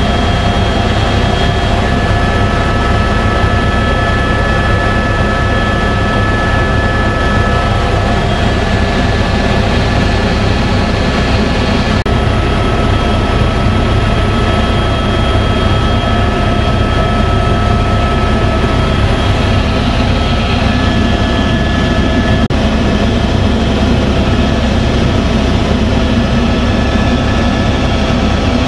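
Helicopter engine and rotor running steadily in flight, heard from inside the cabin: a loud constant drone with a steady high whine over it.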